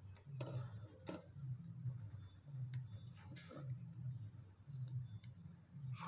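Scattered small clicks and rustles of a radio's circuit board, plastic casing and wire leads being handled, over a steady low hum.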